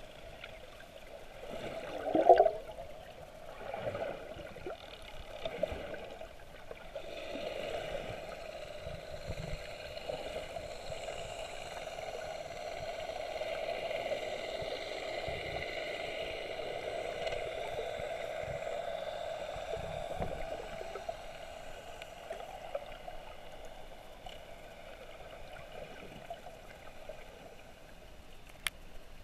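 Muffled underwater sound from a submerged camera: seawater gurgling and sloshing around it over a steady hum, with one louder gurgle about two seconds in.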